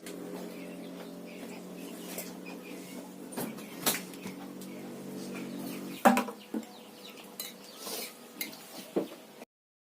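Kitchen utensils clinking and clattering against pots and dishes, with scattered sharp clicks. A steady low hum runs under them and stops about six seconds in, at the loudest clatter. The sound cuts off just before the end.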